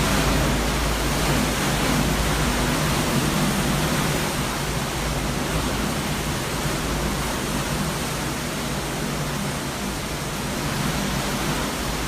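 Hurricane-force wind blowing steadily, a dense unbroken rush with heavy rumble on the microphone.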